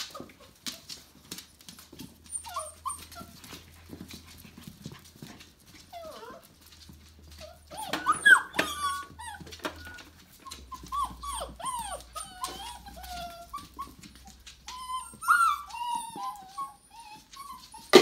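Five-week-old Tamaskan puppies whimpering and squealing: short high cries that bend up and down, scattered throughout and loudest about eight seconds in and again near the end. Claws tick on the hardwood floor, and there is a sharp knock at the very end.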